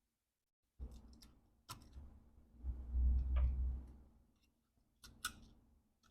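Small sharp clicks and light knocks of laptop parts and cables being handled on a workbench, with a longer, louder low rumble of handling noise about three seconds in.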